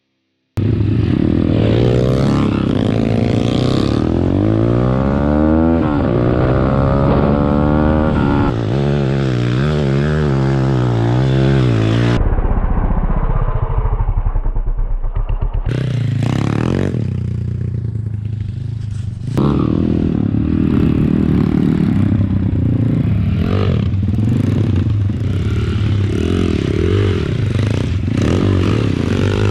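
A 140 cc single-cylinder four-stroke pit bike engine revving up and down over and over as the bike is ridden off-road. For a few seconds in the middle it runs lower and steadier before revving again.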